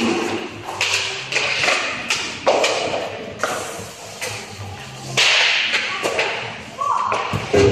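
Ice hockey skates scraping and cutting across the rink surface in a string of sudden strokes, mixed with sharp clacks of sticks and pucks.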